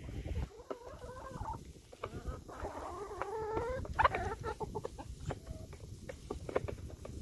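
Chickens clucking and giving soft, wavering calls, with scattered short pecks and scratches.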